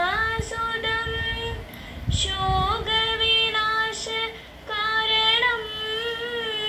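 A girl singing a devotional song unaccompanied, holding long, slowly bending notes in three phrases with short breaths between.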